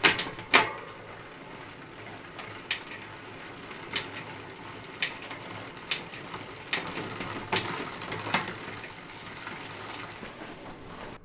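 Bicycle drivetrain turning on a work stand, the chain running over the rear cassette and through the Shimano STX rear derailleur with a steady whir. Sharp clicks come about once a second as the bike is run up through the gears to check the indexed shifting adjustment.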